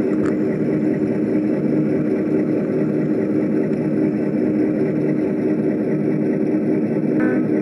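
Model passenger train running on the layout track, giving a steady mechanical hum and rumble with a lower throb about once a second. A higher chord of tones comes in just before the end.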